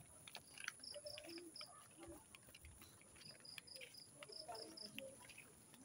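A cricket chirping outdoors at night: a few runs of four or five quick, high-pitched pulses, over faint distant voices.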